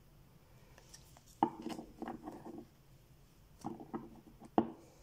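Tarot cards handled on a wooden tabletop. A sharp tap comes about a second and a half in, followed by a short run of knocks. Another cluster of taps follows, then one last sharp tap near the end.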